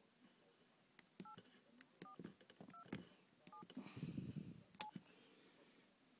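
Touch-tone telephone keypad being dialed: about five short two-tone DTMF beeps spaced under a second apart, each with a sharp button click. A brief rustle of handling noise comes about four seconds in.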